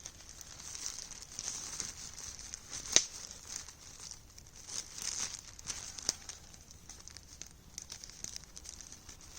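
Plastic sheeting crinkling and rustling as it is handled and wrapped, with a sharp snap about three seconds in.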